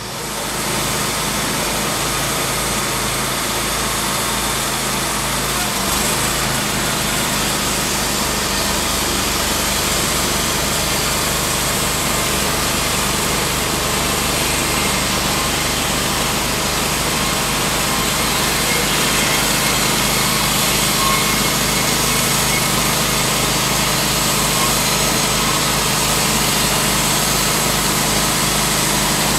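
TimberKing B-20 portable band sawmill sawing through a walnut log: its engine runs steadily under load as the band blade cuts a board. The noise steps up within the first second as the cut gets going, then holds steady.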